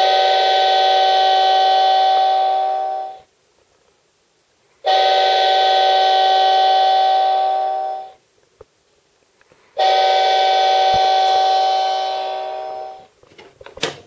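Hankyu 6300 series train alarm clock sounding its electric train whistle alarm: three steady horn-like blasts of about three seconds each, with short pauses between. A sharp click near the end.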